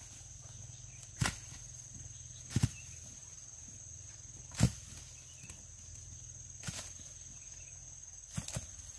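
Fresh round fruits dropping from the tree and thudding onto grassy ground, about six or seven thumps a second or two apart, two of them in quick succession near the end. A steady high insect drone runs underneath.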